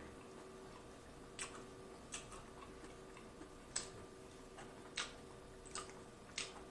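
Close, quiet chewing of a mouthful of pizza with the mouth closed: six or seven soft, irregular mouth clicks and smacks spread over several seconds, over a faint steady hum.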